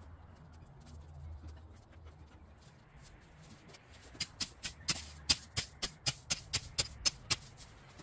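A faint low hum, then from about four seconds in a quick, regular run of sharp clicks, three or four a second, which stops shortly before the end.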